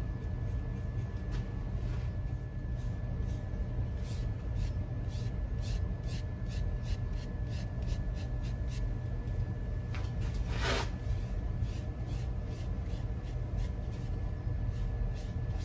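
A bristle paintbrush stroking liquid finish onto a turned oak vase: a run of short, quick brush swishes, with one louder, longer rustle about two-thirds through, over a steady low rumble.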